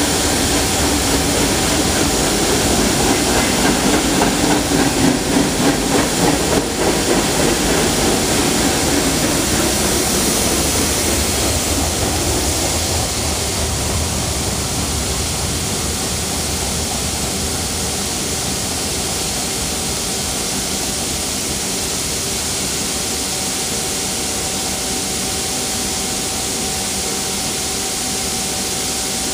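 Freight cars of a Norfolk Southern mixed freight rolling past close by: steel wheels on the rails make a loud, steady rolling noise. It pulses rhythmically for a few seconds about three seconds in, then settles into a steadier, slightly fainter rumble and hiss.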